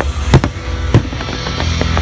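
Fireworks exploding over loud music: two sharp bangs, about a third of a second and a second in, then a weaker pop near the end.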